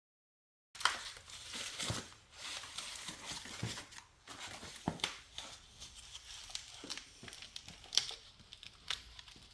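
Packaging being unwrapped by hand: irregular crinkling and tearing with sharp snaps, starting abruptly after a moment of dead silence.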